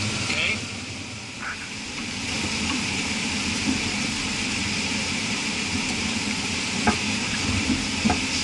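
Steady hiss and low rumble of running cooling tower equipment, with a few faint metallic clicks as the loosened motor pulley is handled.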